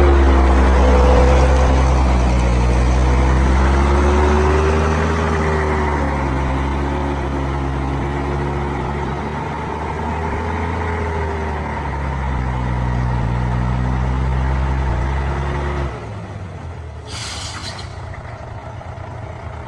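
Heavy vehicle engine working hard, its pitch slowly rising and falling. About 16 seconds in it drops sharply to a much lower level, and a short hiss of air follows about a second later.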